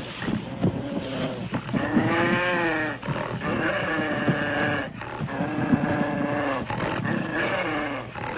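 A young leopard and a jackal fighting: four long, wailing cries in a row, each a second or more, over harsh growling and scuffling.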